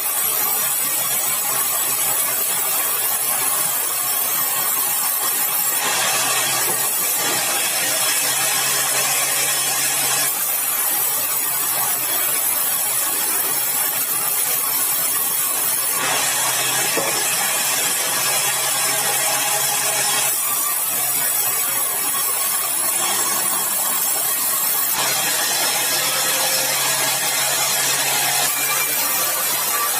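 Powered sawmill saw cutting lengthwise through a large, dry, hard red balau log, with a steady running hum under a continuous high, rasping cutting noise that changes character every few seconds.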